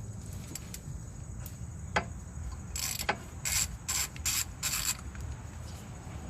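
A hand ratchet with a 14 mm socket being worked on a brake caliper bolt to loosen it. A sharp click comes about two seconds in, then five short bursts of ratchet clicking.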